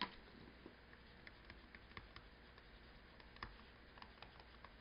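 Faint, irregular taps and clicks of a stylus on a tablet while words are handwritten, over near-silent room tone.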